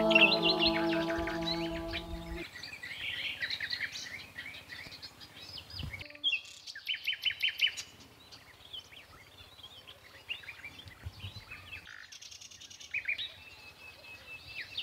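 Small birds chirping and twittering in quick, short calls, many at once. A chanted vocal music track with held notes dies away in the first two seconds.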